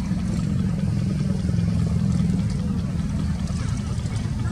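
A steady low rumble, even and unbroken throughout, with faint short chirps higher up near the end.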